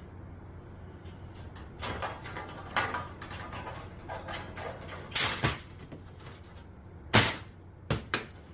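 Sheet-metal pieces being handled on a work surface: scraping and sliding, then two loud sharp clanks about five and seven seconds in, with a few lighter knocks near the end.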